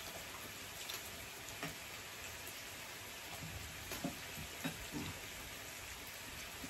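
Meat sizzling on a tabletop electric grill plate, a steady even hiss, with a few light clicks of chopsticks and utensils.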